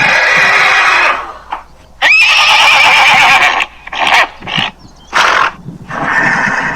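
A horse whinnying: a long neigh at the start and another, opening with a rising glide, about two seconds in, then several shorter calls.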